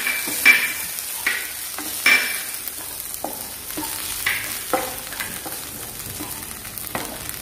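A wooden spatula stirring and scraping a crumbly filling of sprouted green gram and crushed chana dal around a non-stick frying pan, with a light sizzle underneath. The strokes are short and irregular, about one or two a second.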